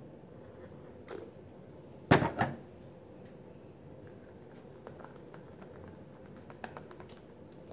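A plastic bottle of contact lens solution set down on a table with a double thunk about two seconds in, followed by a few faint clicks and taps.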